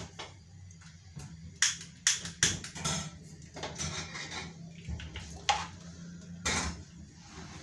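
Scattered knocks and clinks as a pan is shifted across a gas cooktop's metal grates and the stove knobs are turned, over a steady low hum.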